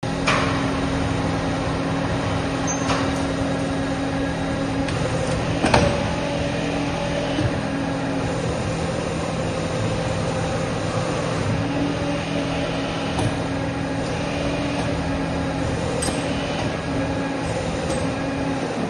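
Automatic J-hook bending and welding machine running: a steady mechanical hum with a low tone that cuts in and out, and sharp clacks just after the start, about six seconds in, and around sixteen seconds.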